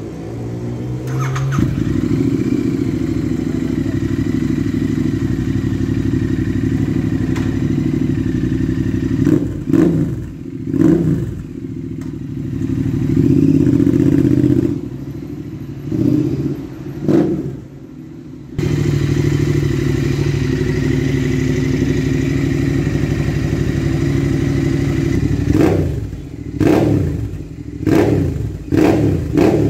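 Royal Enfield Interceptor 650's parallel-twin engine with an aftermarket exhaust, idling and revved in short sharp throttle blips. It cuts abruptly to the engine idling again, then several quick blips near the end.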